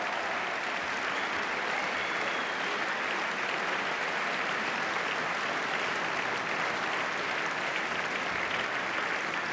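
A large audience applauding steadily, the clapping easing slightly near the end.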